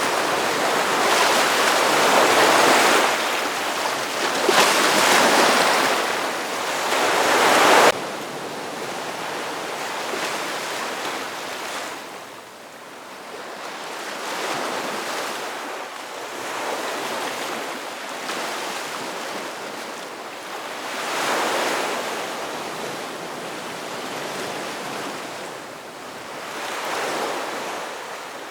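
Ocean surf breaking and washing up the beach, the noise swelling and easing with each wave. It is loud at first, drops suddenly to a softer wash after about eight seconds, then rises again with a few more gentler waves.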